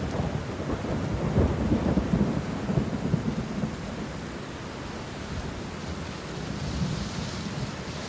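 Rolling thunder over steady rain: a low rumble swells about a second in and fades by the middle, leaving the even hiss of rain.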